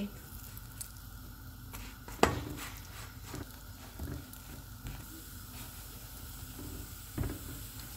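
Burger buns warming on a hot, lightly oiled flat tawa, sizzling faintly and steadily, with a few knocks as they are set down and turned; a sharp knock about two seconds in is the loudest, another comes near the end.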